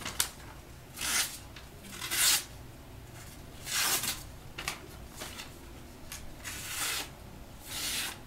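Freshly sharpened kitchen knife slicing strips off a sheet of printer paper: a short hissing rasp with each cut, about six cuts spaced roughly a second apart.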